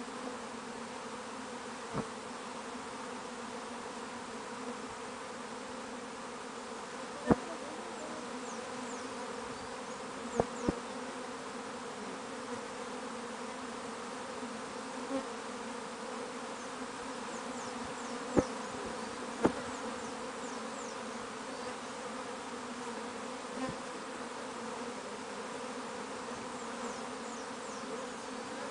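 Steady, dense buzzing drone of a large honeybee swarm (Apis mellifera) flying around and crowding into a wooden hive box as the swarm moves in. A few short sharp ticks stand out now and then.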